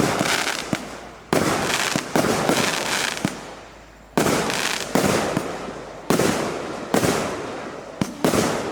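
Consumer fireworks battery (cake) of 1.2-inch shells firing in sequence: sharp reports roughly once a second, some in quick pairs, each followed by a fading crackling tail.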